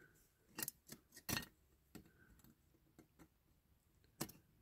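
Faint, sharp clicks and taps of a small hand tool against diecast metal toy parts, about six in all, the loudest about a second and a half in and again near the end.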